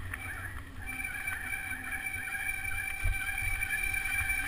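Tandem mountain bike's brakes squealing: a steady high-pitched tone sets in about a second in and holds, over a low rumble of the ride. The brakes are getting hot on the descent.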